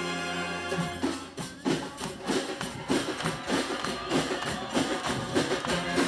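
Live wind band and drum-section music: a held brass and wind chord for about the first second, then drums come in with a quick, steady beat of about three hits a second while the band keeps playing.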